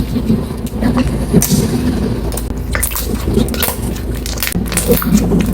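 Hands squishing and pressing a clear 'fake water' slime, giving an irregular run of wet clicks and small pops over a steady low hum.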